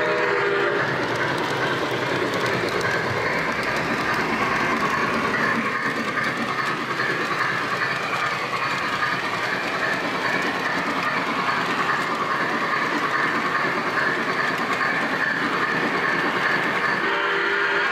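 O gauge three-rail model train rolling steadily along the track, heard from a flat car just behind the locomotive's tender: a continuous clatter and rumble of wheels on rail with a steady mechanical whine. A short tone sounds at the very start and again near the end.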